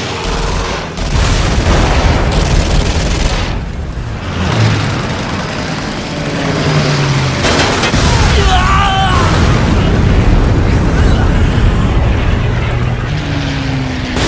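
Film soundtrack of a WWII air battle: a dense, loud mix of fighter-plane engines, machine-gun fire and explosions, with short dips in the first few seconds.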